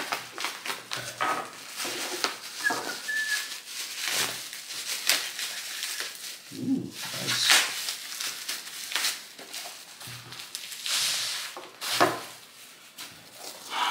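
Plastic bubble wrap crinkling and rustling as it is cut open and pulled off a long box, with irregular crackles and a brief high squeak about three seconds in.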